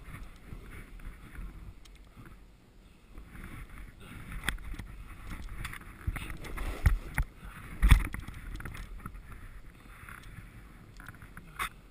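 Snowboard sliding and carving through powder snow: a steady swishing hiss over a low wind rumble on the camera microphone, with a few sharp thumps, the loudest about eight seconds in.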